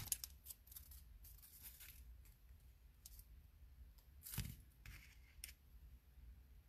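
Faint rustling and small clicks of die-cut paper pieces and a roll of glue dots being handled, a glue dot being peeled off its backing strip; one louder rustle about four and a half seconds in.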